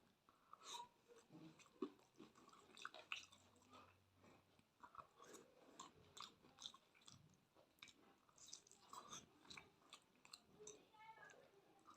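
Faint chewing and biting of malpua, a soft fried sweet pancake, with irregular wet mouth clicks and smacks.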